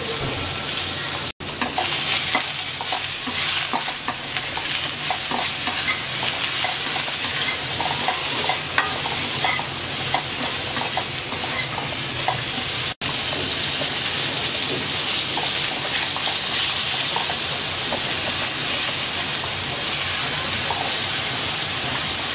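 Eggplant pieces frying in hot oil in a wok, a steady sizzle with small scrapes and clicks of a wooden spatula stirring them. The sound breaks off for an instant twice.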